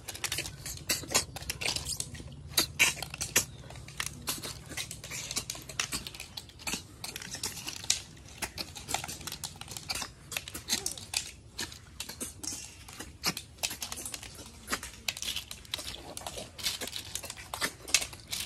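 Snail shells clicking and clattering against steel plates and each other as several people pick up and eat cooked snails by hand: a dense, irregular run of small clicks and taps.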